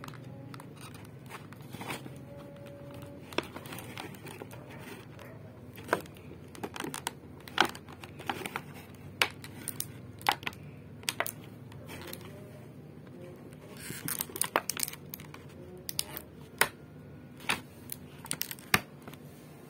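Thin clear plastic blister packaging crinkling and crackling as it is flexed, with irregular sharp clicks and pops as figures are pried out of its wells; the clicks come thickest about two-thirds of the way through.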